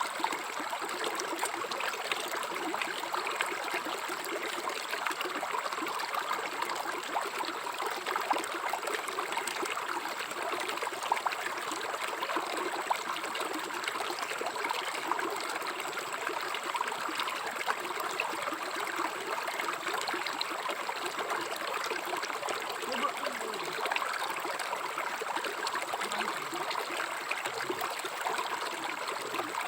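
River water flowing steadily, an even rushing sound with small splashes and trickles flickering through it.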